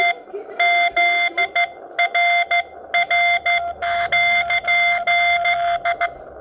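Morse code (CW) signal received on a Xiegu X6100 HF transceiver: a steady mid-pitched beep keyed on and off in dots and dashes through the radio's speaker, with band hiss between the beeps. The keying stops about six seconds in, leaving only the hiss.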